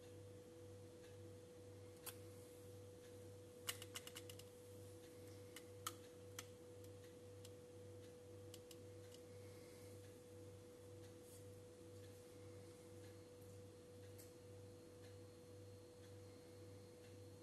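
Near silence: a steady low hum with a faint higher steady tone, and a few small clicks in the first several seconds, several in quick succession about four seconds in.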